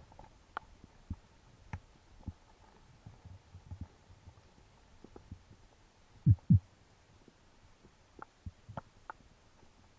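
Muffled underwater sound through a camera's waterproof housing: scattered faint clicks and low knocks, and two loud low thumps in quick succession a little past the middle.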